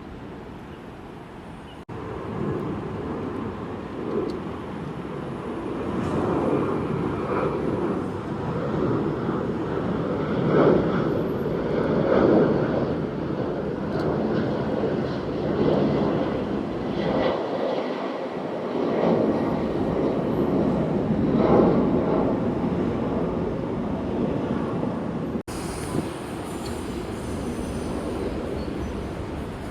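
Jet airliner engines roaring as an aircraft passes: a loud, deep rumble that swells and fades in uneven surges. It starts abruptly about two seconds in and changes abruptly near the end.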